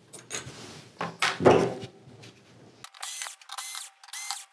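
A few handling knocks, then about three seconds in a cordless drill/driver runs in three short bursts, each rising in pitch, backing screws out of a TV circuit board.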